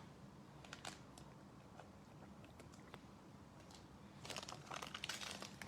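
Faint soft clicks of trading cards being handled, then from about four seconds in the crinkle of a plastic trading-card pack wrapper being handled, growing louder near the end.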